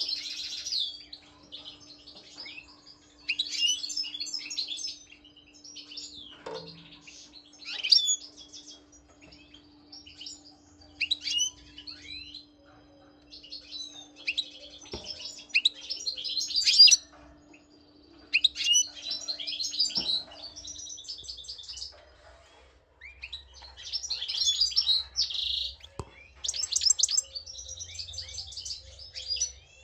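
Caged European goldfinch singing: about eight bursts of rapid, high-pitched twittering song, each a second or three long, separated by short pauses.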